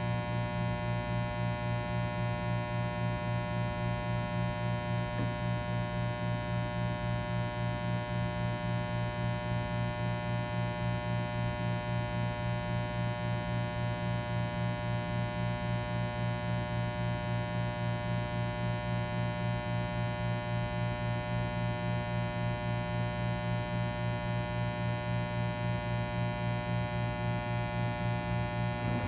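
Breville Bambino Plus espresso machine giving off a steady low buzzing hum after a shot has been pulled, with a slight regular pulsing.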